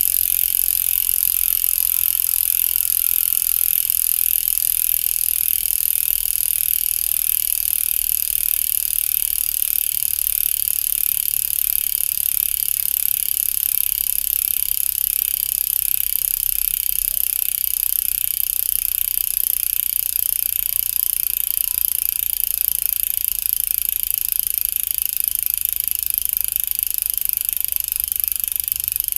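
Bicycle rear freehub coasting with its freewheel mechanism clicking, a steady high-pitched buzz.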